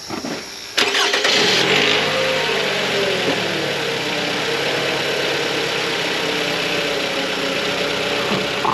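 A 2014 Toyota RAV4's four-cylinder engine is cranked by the starter. It catches just under a second in with a brief rise in revs, then settles into a steady idle on its freshly replaced spark plugs and reseated ignition coils.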